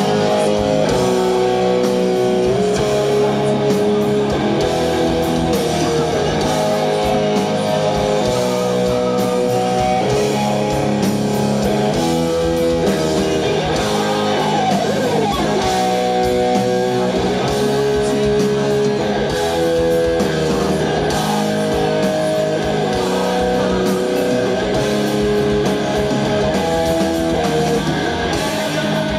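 Live rock band playing an instrumental passage: an electric guitar plays a melodic line of held notes, with one bending glide about halfway through, over bass and drums.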